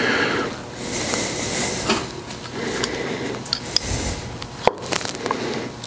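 Small metal clinks, knocks and rattles, with rubbing and scraping in between, as tools and metal parts are handled on a cluttered workbench.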